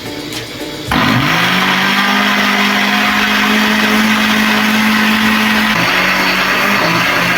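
Electric kitchen blender switched on about a second in. Its motor spins up quickly and runs steadily, pureeing boiled kahorora. The motor's pitch drops slightly near the end as the load shifts.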